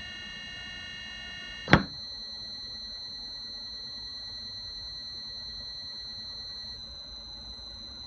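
Induction motor running on a variable frequency drive, giving a high-pitched whine made of several steady tones. About 1.7 s in there is one sharp click and the whine changes as the drive steps down from 60 Hz to 20 Hz; near the end it shifts again as the speed steps down to 12 Hz.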